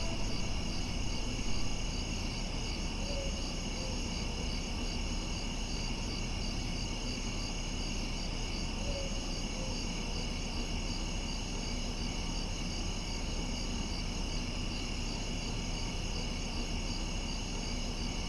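Crickets and other night insects chirping steadily in a continuous chorus, over a low background hum.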